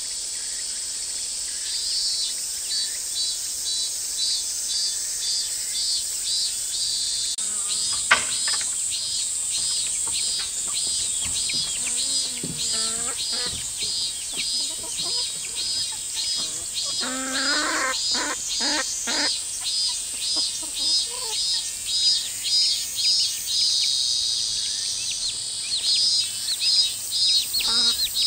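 A steady high drone of insects with a chirping call repeating about twice a second, while free-range hens cluck in short bouts in the middle and near the end. One sharp click about eight seconds in.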